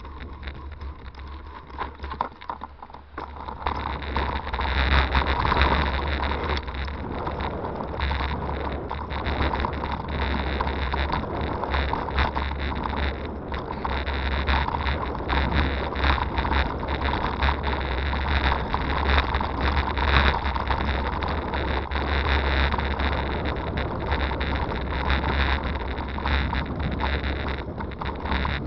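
Riding noise from a Scott Sportster hybrid bicycle on a gravel towpath: tyres rolling and crunching over the gravel, with wind rumbling on the camera microphone. It grows louder from about four seconds in and stays steady after that.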